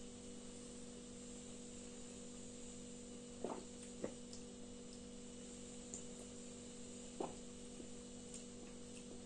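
Faint swallowing as a carbonated soft drink is drunk straight from a plastic bottle: three short gulps, over a steady electrical hum.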